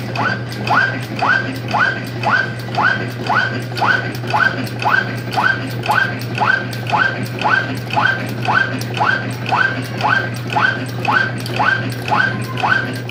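Nail-making machine cycling about twice a second, each stroke giving a short, high squeak that falls in pitch, over a steady motor hum.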